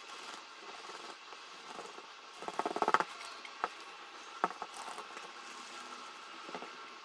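Wooden slicker rubbed hard against the leather of a wallet: a quick run of scraping, chattering clicks about two and a half seconds in, then a few single light knocks.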